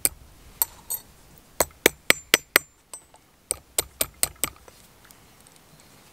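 Sharp metallic hammer taps on copper being cold-forged into jewelry: three spaced taps, then two quick runs of five taps at about four a second.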